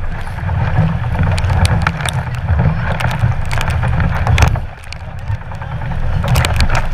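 Wind and water noise aboard a 470 sailing dinghy under way: a heavy, gusting rumble with a rushing hiss and scattered sharp knocks. It eases briefly about two-thirds of the way through.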